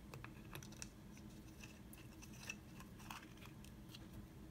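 Faint scattered clicks and light scrapes of a grip panel and its screws being fitted onto a 1911 pistol frame by hand, over a faint steady hum.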